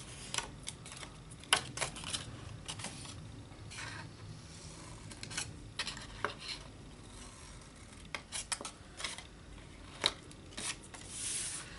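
Scissors snipping through designer paper, a series of short, separate snips at irregular intervals.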